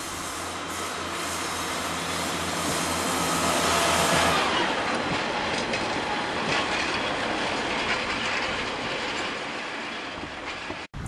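A two-car Class 143 Pacer diesel railbus runs past. Its diesel engine hums steadily, growing louder to a peak about four seconds in, then gives way to the rush and clack of its wheels on the rails. The sound cuts out abruptly near the end.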